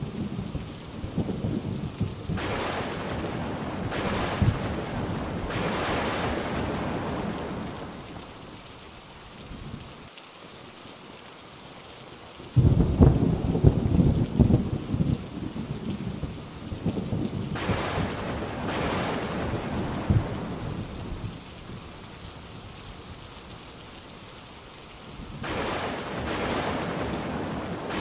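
Thunderstorm: steady rain hissing with rolling thunder rumbling under it. About twelve seconds in a loud clap of thunder breaks suddenly and rumbles away over several seconds, and the rain hiss swells now and then.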